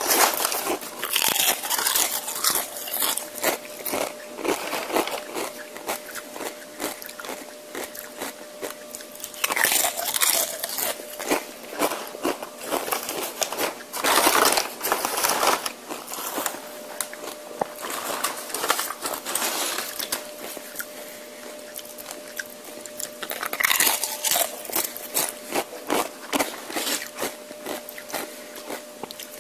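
Close-miked eating of tortilla chips: loud crunching bites in bursts every few seconds, with quieter chewing between them.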